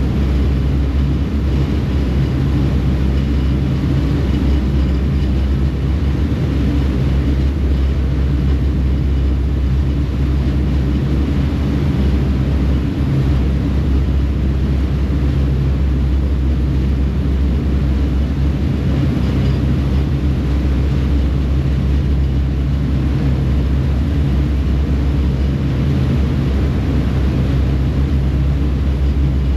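Ferry engines running steadily under way, a deep, even drone, over the rushing of the churning wake water.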